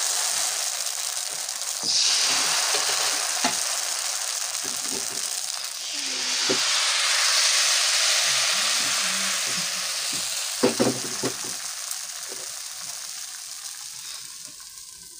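Appam batter sizzling in a hot, oiled kadai: a steady hiss that swells about two seconds in and again around six seconds, then slowly dies down. A few light knocks come around eleven seconds in.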